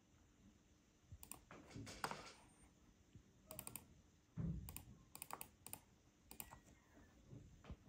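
Faint, irregular clicks and taps on a laptop's keys and touchpad, with a soft thump a little past halfway.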